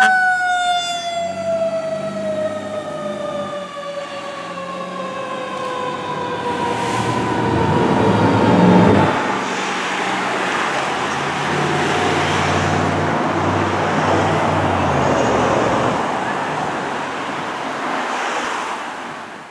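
Fire apparatus passing on a code 3 run, its siren winding down in one long, slowly falling tone over the low running of a heavy truck engine. It is loudest about nine seconds in, then fades away.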